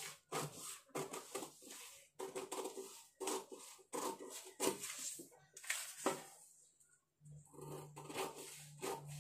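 Scissors snipping through a paper pattern sheet, a quick run of short cuts with the paper rustling, pausing for a moment about seven seconds in. A low steady hum comes in near the end.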